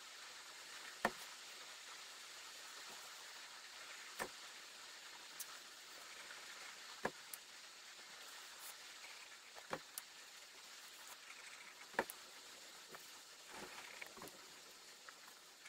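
About ten light, sharp clicks and taps, scattered a second or more apart, as small wooden wedge segments are glued and set down on a wooden board, over a steady faint hiss.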